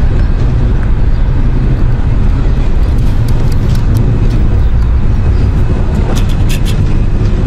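A loud, steady low rumble, with a few faint clicks scattered through the second half.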